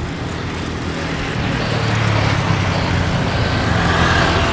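Jet engines of a Boeing 787-9 at takeoff power: a broad rushing noise that grows louder, with a faint whine coming up near the end.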